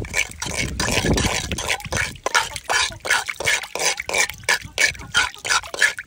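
Chickens dipping their beaks into a water container as they drink, making quick wet splashy taps about three or four a second.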